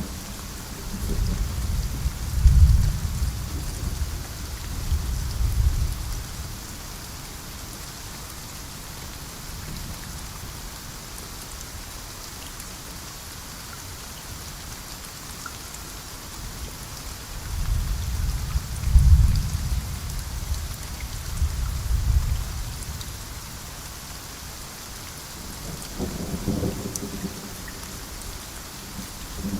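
Steady heavy rain hissing, with two long rolls of low thunder rumbling for several seconds each, and a shorter rumble near the end.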